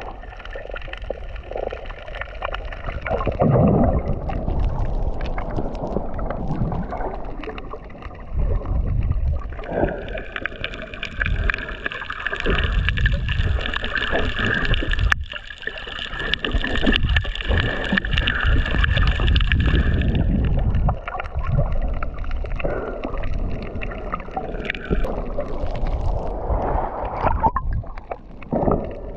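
Muffled underwater water noise: sloshing and gurgling with irregular low rumbling surges as the water moves against the microphone. A steady high whine sits over it for about ten seconds in the middle.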